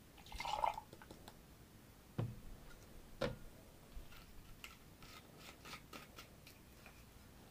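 Glass liquor bottles being handled on a bar top: a brief splash near the start, two knocks of bottles set down, then a run of small clicks as a screw cap is twisted off a bottle.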